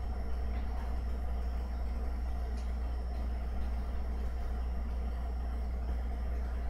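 A steady low hum, with one faint click about two and a half seconds in.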